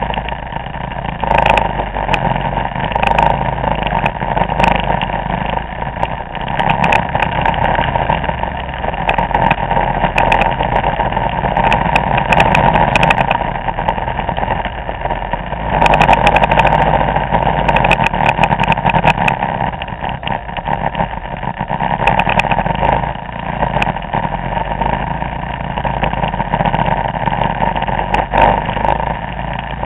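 Vespa scooter engines of a large group ride running steadily, rising and falling every few seconds, with scattered sharp clicks on the handheld camera.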